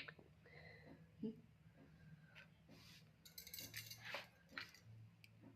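Near silence with a few faint clicks, a soft knock and light clinks of small hard objects being handled.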